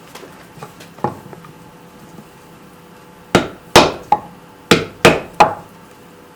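Rounding hammer striking a small hot steel bar on an anvil: a few light taps and clinks, then from about three seconds in six sharp blows at roughly two to three a second, each with a short metallic ring.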